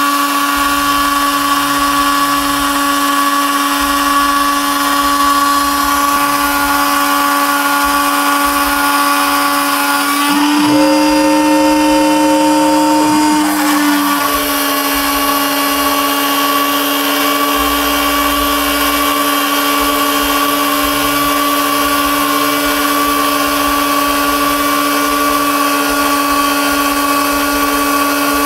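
CNC milling spindle with a 1 mm cutter running at speed and cutting through a stack of double-layer PCBs, making a loud, steady whine. For about three seconds near the middle its pitch rises slightly, then settles back.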